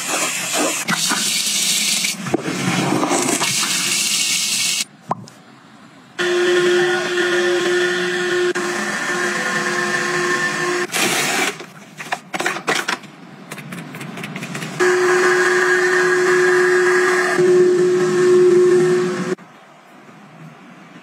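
Window-cleaning robot's motor running with a steady whine, in two stretches of about four to five seconds each, starting about six seconds in and again about fifteen seconds in. In the first few seconds there is loud scrubbing and water noise from a toilet bowl being cleaned.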